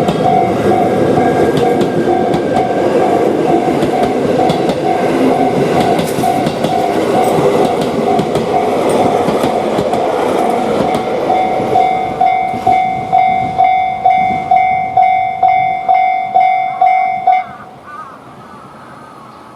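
Japanese level-crossing warning signal ringing its 'kan-kan' strikes about twice a second while a train passes with wheel clatter. The train noise fades about ten seconds in, the signal rings on alone, then cuts off suddenly near the end as the crossing clears.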